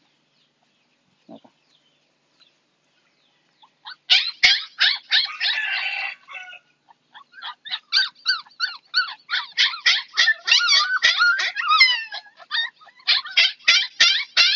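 Siberian Husky puppy, about six weeks old, crying and yelping in rapid high-pitched cries, several a second, starting about four seconds in, as a mercury thermometer is held in its rectum to take its temperature.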